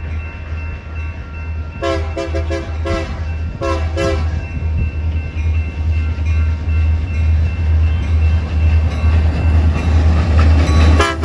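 Union Pacific diesel freight locomotive giving a horn show: its multi-note horn sounds a quick run of five short toots about two seconds in, two more just after, and another short toot near the end. Under the horn the locomotive's low diesel rumble grows louder as the train approaches, and a steady high ringing fades out in the first half.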